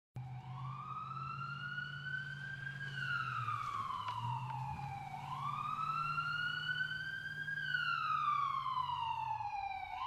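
Siren wailing, its pitch rising slowly for about two and a half seconds and falling for about as long, twice over, above a low steady hum.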